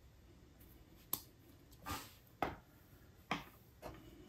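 A few faint, sharp clicks and taps, about one every half second to second, as small plastic parts of a model locomotive's truck (gears and wheelsets) are handled and set down.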